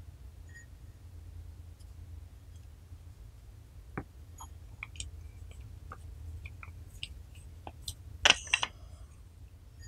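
Sticky clicks and crackles of slime being handled and pressed, a few small ones from about four seconds in, then two louder crackling bursts a little after eight seconds as red slime is packed into a plastic garlic press. A faint low hum runs underneath.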